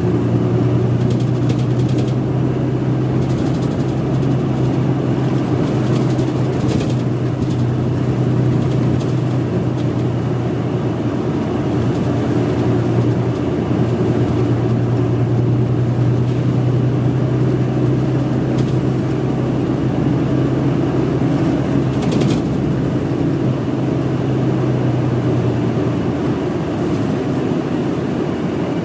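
City route bus's diesel engine idling steadily, heard from inside the passenger cabin, with a few short sharp sounds over it; the engine note changes near the end.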